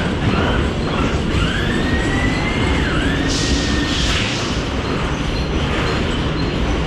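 Mumbai AC local electric train running past the platform with a steady rumble of wheels on the rails. A squeal of the wheels rises and falls between about one and four seconds in.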